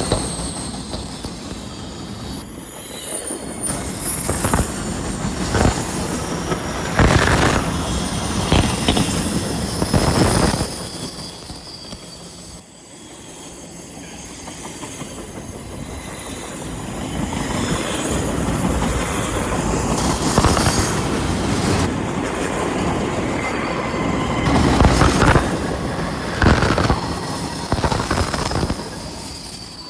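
BNSF double-stack intermodal freight train passing close by, its steel wheels clattering and rumbling over the rails. A thin, high-pitched wheel squeal runs through most of it as the wheel flanges grind on the curving track.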